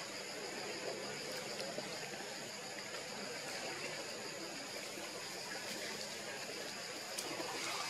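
Steady background hiss with faint, high, steady tones and a few faint clicks near the end; no single clear event.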